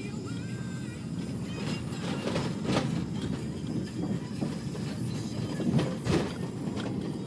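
Road noise heard inside a moving car's cabin: a steady low rumble of tyres and engine, with two brief knocks a few seconds apart.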